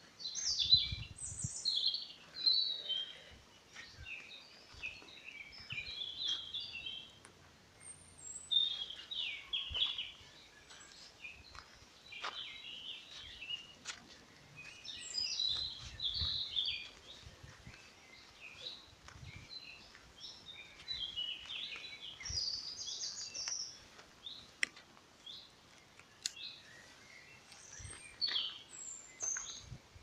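Several woodland songbirds singing, one chirping and warbling phrase after another with short gaps between. Occasional soft, low thuds sound beneath them.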